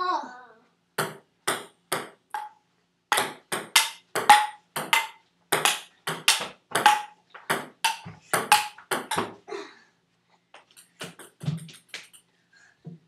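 Table tennis rally: a ping-pong ball clicking sharply off the paddles and the table in quick alternation, about two to three hits a second. The rally stops near ten seconds in, followed by a few fainter ticks.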